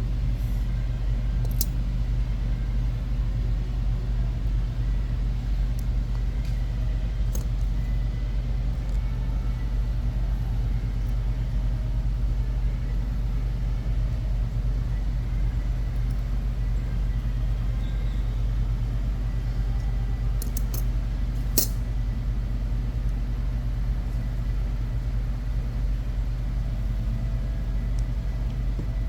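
A steady low background rumble, with a few light clicks of small parts being handled near the start, about seven seconds in and twice around twenty-one seconds.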